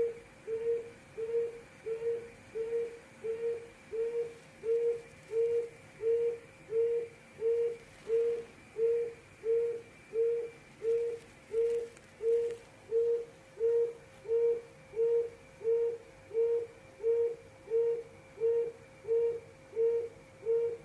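Quail giving its low 'hồi công' hooting call: short, low notes repeated evenly, about three every two seconds.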